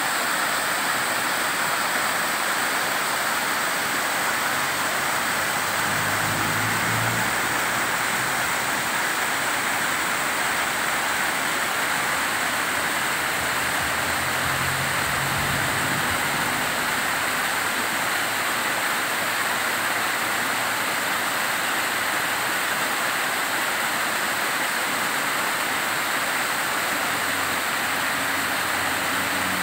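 Water falling from a rock cliff and splashing onto stone: a steady, even rushing. A faint low hum swells in briefly about six seconds in, again around fourteen seconds, and near the end.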